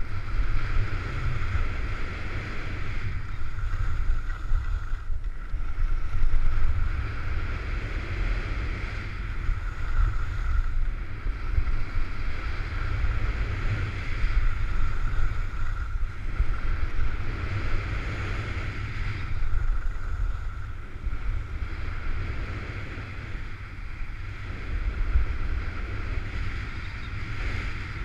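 Wind buffeting a moving skier's camera microphone as a low, steady rumble, over the hiss of skis on groomed snow that swells and fades every few seconds as the turns come and go.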